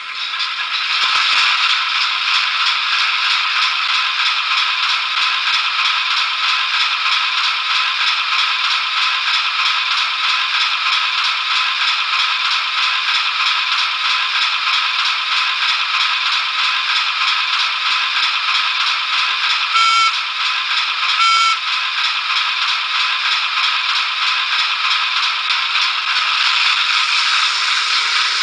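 Hornby class 08 shunter's DCC sound decoder playing a clattering diesel engine sound through the model's small onboard speaker, with almost nothing in the bass. The sound jumps up about a second in, and two short horn toots come at about twenty and twenty-one seconds. The engine sound rises slightly near the end as the loco moves off.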